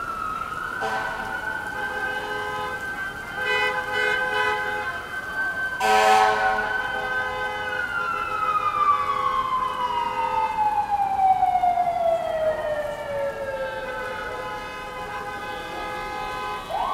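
Emergency vehicle siren wailing: a long held tone, then a slow falling sweep, rising again near the end. Several vehicle horn blasts sound in the first half, the loudest about six seconds in. Rain and wet traffic hiss run underneath.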